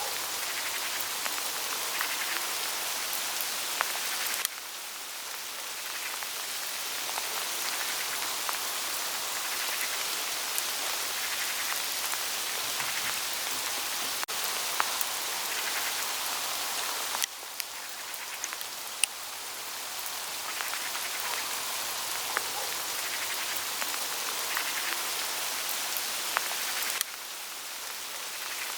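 Small hail falling on autumn leaves: a steady hiss dotted with many light ticks of hailstones striking the foliage. The level drops suddenly three times and builds back up.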